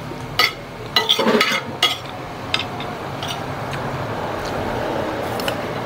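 Metal spoon and fork clinking and scraping against a ceramic plate during a meal, with several sharp clinks in the first two and a half seconds. A steady background noise follows and grows slightly louder toward the end.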